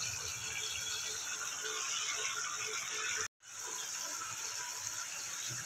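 Spicy gravy with koi fish simmering in a kadai: a steady crackly bubbling that drops out for a moment a little past halfway.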